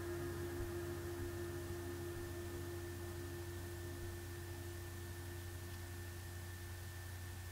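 Steady electrical hum with a clear, unchanging tone and a faint higher whine over light hiss, slowly fading a little; no other sound.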